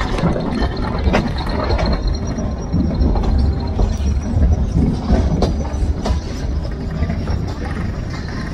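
Metre-gauge passenger train running, heard from the coach window: a steady low rumble with the wheels clicking and knocking over the rails at uneven intervals.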